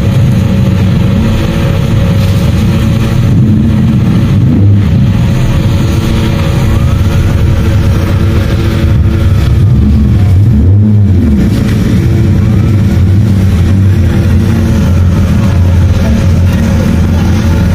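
Parked fire truck's engine running at a steady low drone, driving its pump while the hose is in use.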